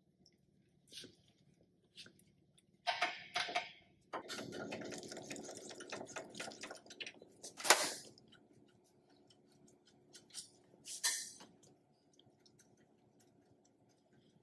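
Hand tools working the front brake caliper bracket bolts of a Honda Pilot: scattered metallic clicks and clinks, then a few seconds of continuous rattling as a bolt is run out, then a sharp clank just past the middle and a few more light clicks.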